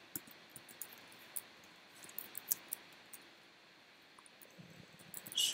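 Computer keyboard typing: irregular, sharp keystroke clicks over a low hiss, thinning out after about three seconds, with one louder short sound just before the end.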